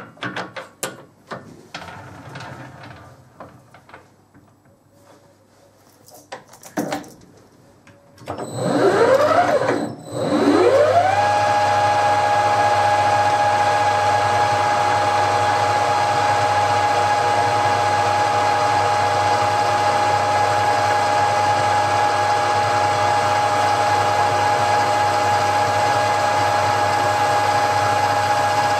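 Clicks and knocks of a workpiece and chuck being handled on a metal lathe, then the lathe spindle motor starts with a rising whine, stops briefly, and starts again, running up to a steady whine.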